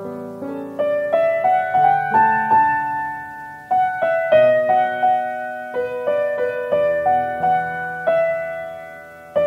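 Background piano music: a slow melody of struck notes that ring and fade, over lower chords.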